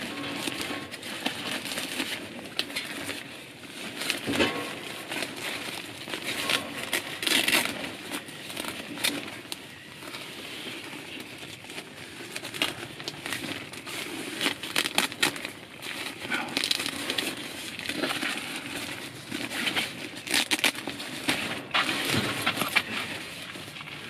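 Tent fabric rustling and crinkling, with irregular knocks and scrapes from a stainless-steel wood-stove chimney pipe being handled and fitted through the tent's chimney opening.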